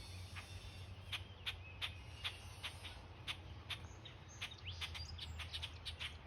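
Birds chirping: many short, sharp chirps, a few a second, with a handful of quick upward-sweeping calls about halfway through, over a low steady hum.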